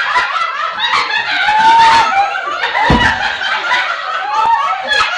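Several women laughing and giggling together, with a few sharp claps and a dull thump about three seconds in.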